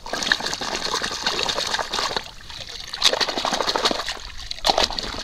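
Water splashing and sloshing as a plastic toy truck is swished back and forth by hand through muddy water to wash it, in irregular splashes with a couple of brief lulls.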